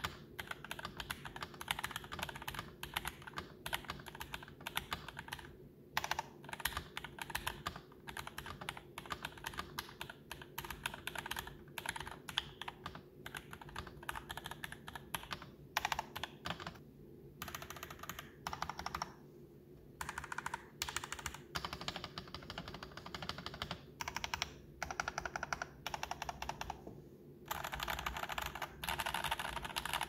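Typing on a Varmilo Manilo 65% mechanical keyboard, stock and unmodified, with Gateron G Pro 2.0 Silver linear switches, double-shot ABS keycaps and Typecool sound dampening. Keystrokes clack in quick runs with a few short pauses, fastest near the end.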